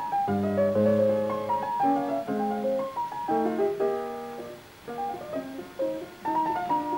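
Instrumental background music: a flowing run of short melodic notes and chords, dipping quieter for a moment around five seconds in.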